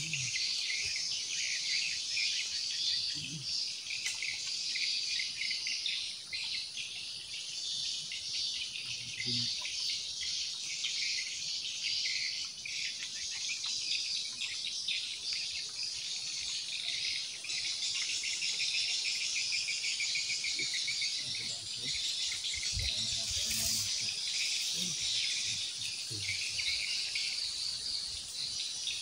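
Dense, steady chorus of insects with a high, rapidly pulsing buzz, with no break.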